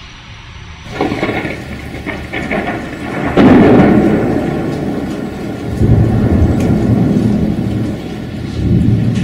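Thunder in a rainstorm over steady rain. A crackle comes about a second in, then a loud sharp crack at about three and a half seconds. The crack rolls on as a long low rumble that swells again twice.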